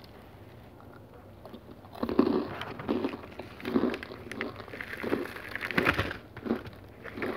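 Chewing of a crunchy black sesame and whole-grain cereal bar: crisp crunching bites in a steady chewing rhythm, a little over one a second, starting about two seconds in.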